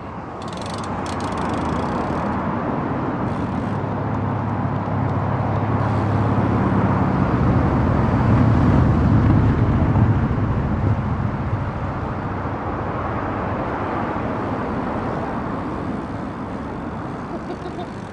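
Motor-vehicle rumble, like traffic on a road, that swells to its loudest about halfway through and then fades, as a vehicle passing slowly would.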